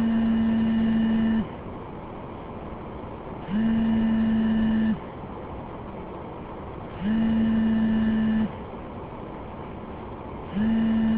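Telephone ringing tone: a steady buzzy tone sounding four times, each about a second and a half long with about two seconds between, over a constant low background noise.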